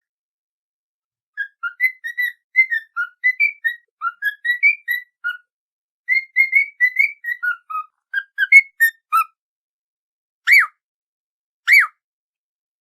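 A whistled tune of short, clear notes in two quick phrases, followed by two separate up-and-down whistles near the end.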